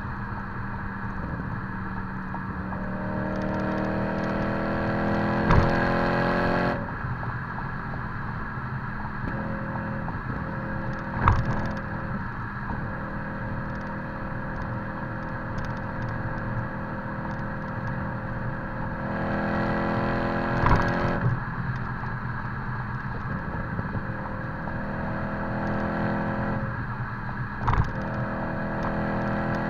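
BMW E90 M3's 4.0-litre V8 through a Megan Racing Supremo cat-back exhaust with the secondary catalytic converters removed, heard from low at the back of the moving car. The exhaust note climbs in pitch under acceleration three times, cutting off sharply after the first climb, and holds steady while cruising in between. A few sharp knocks stand out over road noise.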